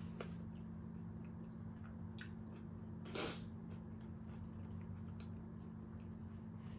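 A person chewing food close to the microphone, with small mouth clicks and one louder crunch about three seconds in, over a steady low hum.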